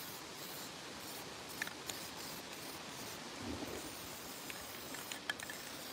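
Aerosol spray paint can hissing faintly and evenly as green paint goes onto a steel slab; the can is almost empty. A few light clicks sound over the hiss.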